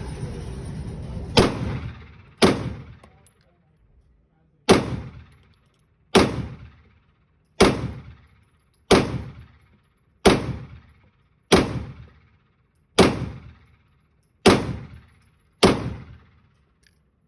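Glock 19X Gen 5 9mm pistol firing eleven single shots in slow, deliberate succession, each about one to two seconds apart, with a short echoing tail after every shot.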